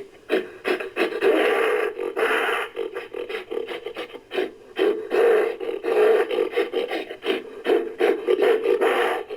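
Homemade creature sound effect of rasping, breathy growls and grunts, with quick choppy pulses broken by longer drawn-out rasps. It is layered from a human voice with gorilla and leopard recordings.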